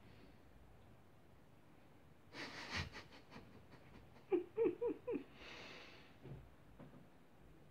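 A man's soft nasal chuckle: a breathy puff, then four quick low hums at about four a second, the loudest part, followed by a short breathy hiss.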